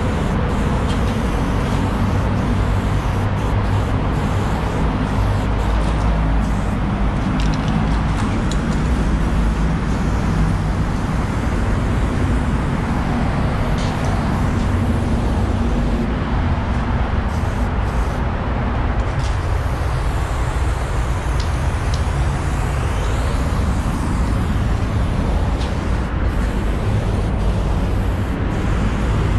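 Aerosol spray paint can hissing as black outlines are sprayed onto a concrete wall, over a steady low rumble.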